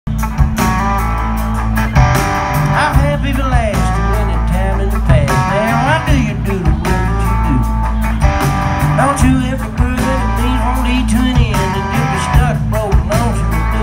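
Live rock band playing on a festival stage: drums keeping a steady beat under electric guitar, acoustic guitar and bass.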